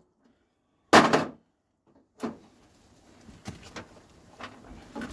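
Metal parts of a smashed microwave being handled: a loud clatter about a second in, a shorter knock a second later, then light rattling and clicks.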